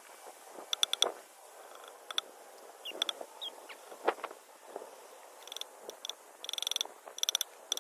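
Sharp knocks and taps, some with a short metallic ring, from mending chicken-wire fence netting at its base with wire and staples; two short chirps about three seconds in and a fast rattle near the end.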